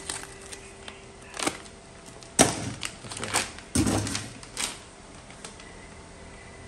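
Several sharp knocks and clicks of hard objects being handled, the loudest about two and a half seconds in.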